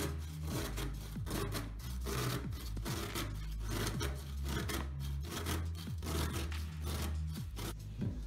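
A white radish being grated on a stainless steel box grater, with rasping strokes about twice a second. Background music with a steady bass line plays underneath.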